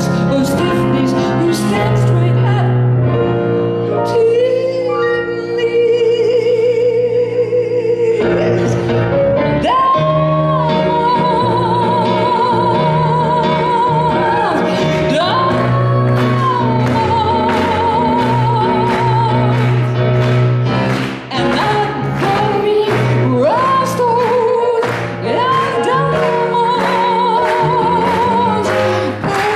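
Women's voices singing long held notes with wide vibrato over a cabaret band, with a steady beat and piano accompaniment.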